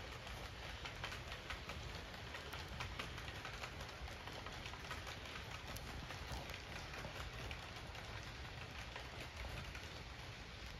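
Model train rolling along the layout's track: a steady low rumble with a dense patter of small clicks from the wheels and rail joints.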